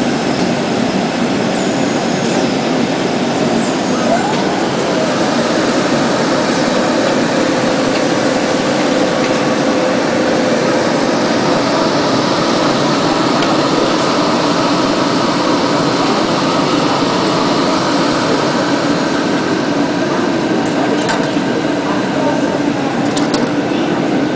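Sankosha DF-050 garment form finisher's blower running steadily, blowing air through the jacket on the body form, with faint voices in the background.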